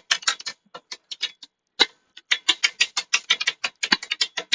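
Hand ratchet wrench clicking in quick runs, about ten clicks a second, with a sparser pause in the middle, as it is worked on an exhaust mounting bolt.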